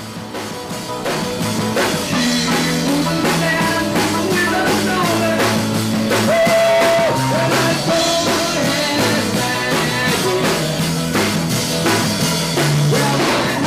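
A live rock band playing an up-tempo rock-and-roll song, with a male lead singer over electric guitar and a drum kit keeping a steady beat.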